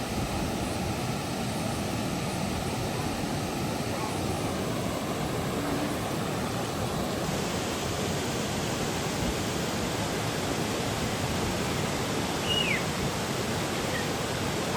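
Waterfall's rushing water: a steady, even hiss that does not change.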